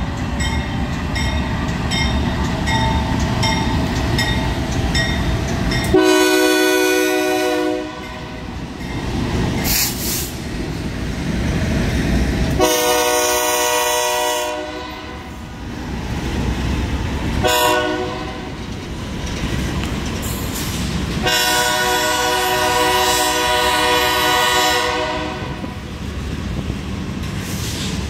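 BNSF freight locomotive's multi-note air horn sounding the grade-crossing signal: two long blasts, a short one, then a final long one. Between blasts, the slow freight train rumbles past, with diesel locomotives going by at first and then ballast hopper cars rolling with a light clicking over the rails.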